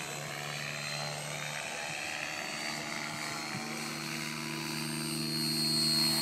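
Electric Align T-Rex 700 flybarless RC helicopter in flight: a steady rotor drone with a thin high motor whine, growing louder toward the end as it comes closer.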